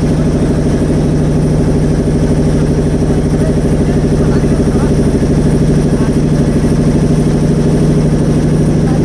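Motorboat's engine running steadily at an even speed, close by and loud.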